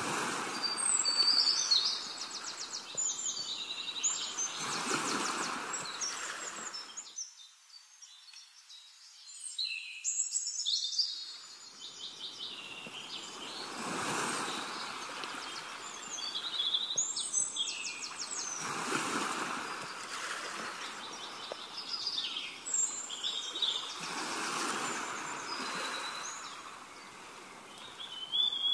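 Songbirds chirping and trilling over a wash of running water that swells and fades every few seconds, dropping away briefly about a third of the way in.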